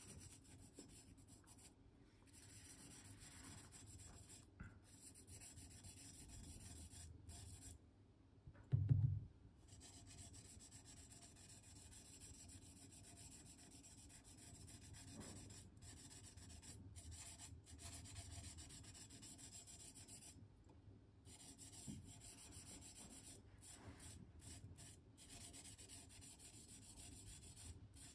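Faint, soft rubbing of a small piece of 600-grit wet sandpaper worked by fingertips over cured urushi lacquer on an earthenware vase, sanding back the lacquer layer over the cracks. A brief low thump about nine seconds in.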